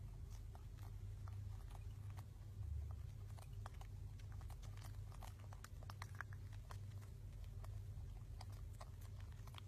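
Faint small-room ambience: a low steady hum with many small scattered clicks and taps, and a brief low thump about three seconds in.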